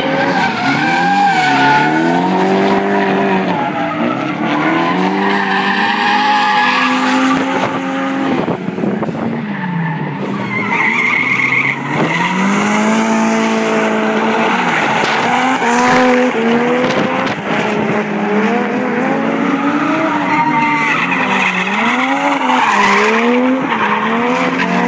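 Drift cars, among them Nissan 180SXs, sliding through a corner: engines revving up and down again and again as the throttle is worked, over tyres skidding and squealing.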